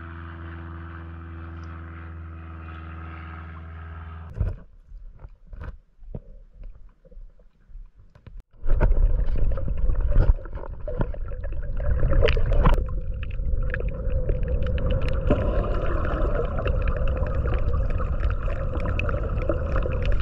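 Underwater sound from a submerged camera: a steady low hum for about four seconds, then scattered clicks, then from about eight and a half seconds a loud muffled rumble of water moving around the camera with sharp clicks over it.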